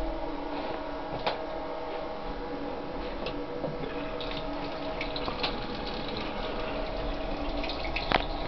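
Steady hum with a rushing hiss from an EN57AKM electric multiple unit, heard inside its toilet cubicle, with a few light knocks, one about a second in and one near the end.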